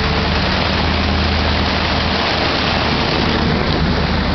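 A truck's engine running steadily while it wades through floodwater, with muddy water rushing and splashing against the body.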